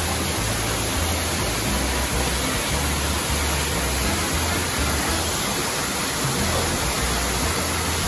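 Steady rush of water from the stream below Khandadhar waterfall, cascading over boulders, with a low, uneven rumble underneath.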